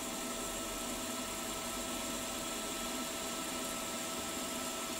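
Milling machine spindle motor running steadily with the end mill turning clear of the work, not cutting: an even hum with a faint steady whine.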